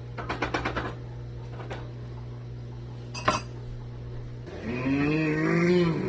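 A metal utensil clinking rapidly against a cooking pot, a lone click, then one sharp clank of metal on metal. A steady hum then cuts off suddenly and a drawn-out low call follows for about a second and a half, rising and then falling in pitch.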